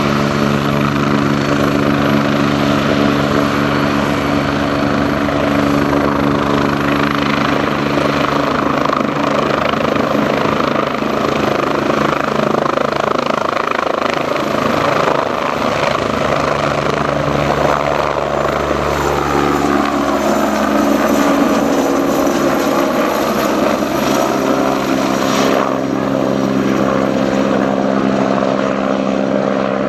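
Agusta A109E Power twin-turbine helicopter lifting off and climbing away: a steady rotor beat with a high turbine whine. The pitch of its tones shifts and bends about two-thirds of the way through as it moves off.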